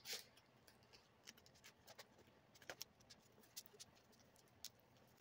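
Near silence with faint, scattered light ticks and taps from hands working on a foam-board fuselage.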